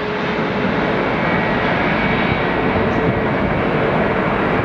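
Jet airliner engines running: a steady, loud rush of engine noise with a faint thin whine in it.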